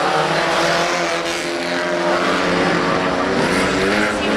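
Several bilcross race cars' engines running hard together, their pitches rising and falling against one another as the pack races through a corner on loose gravel.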